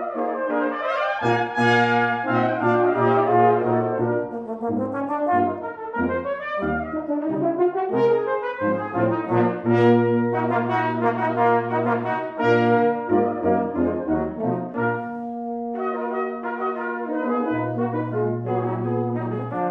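Brass quintet of two trumpets, French horn, trombone and tuba playing, the tuba sounding low notes beneath the upper voices. About fifteen seconds in the music thins to softer held notes before the tuba comes back in near the end.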